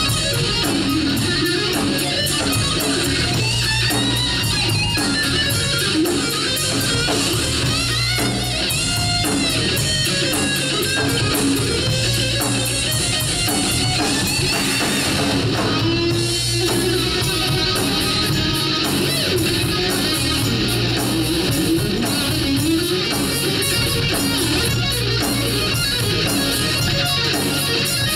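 Live rock band playing: an electric guitar plays lead lines with bending notes over drums and bass guitar.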